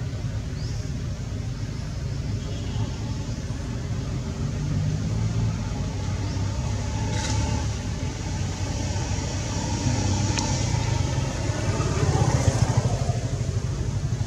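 Low, steady engine rumble of passing road vehicles, swelling near the end as one goes by.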